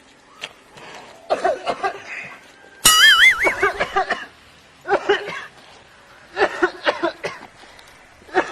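Short bursts of a person's voice, vocal sounds without clear words, with a loud wavering high-pitched tone about three seconds in.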